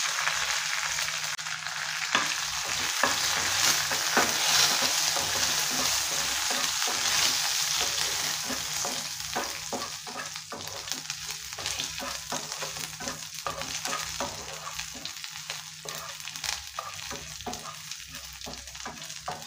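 Garlic cloves, mustard seeds and curry leaves sizzling in hot coconut oil in a nonstick pan while a wooden spatula stirs and scrapes them. The sizzle is loudest in the first half and dies down, leaving sharper crackles and spatula strokes.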